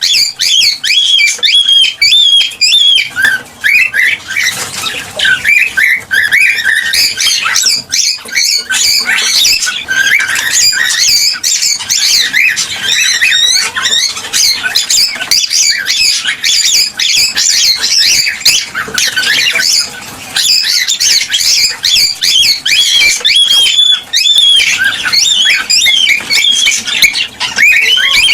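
Cockatiels chirping and whistling continuously, several birds calling over one another in quick, warbling chirps, the excited song a male cockatiel uses in courtship.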